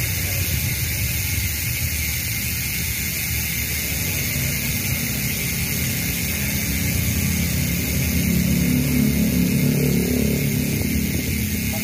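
Strummer HM-350 Boost rear hub's six-pawl freehub clicking as the wheel spins. The clicks run together into a fast, even buzz, which the uploader likens to a wasp, and it grows a little louder in the second half.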